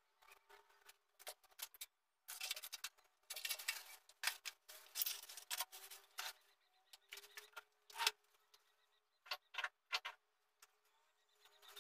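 Faint, irregular rustling, clicks and knocks of clothes and household things being handled and put away, with one sharper knock about eight seconds in, over a faint steady hum.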